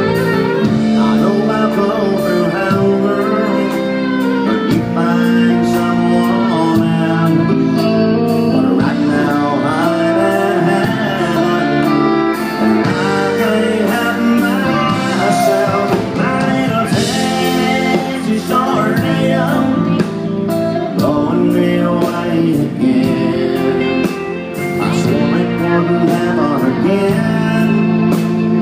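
A live country band playing, with guitars, drums and a man singing.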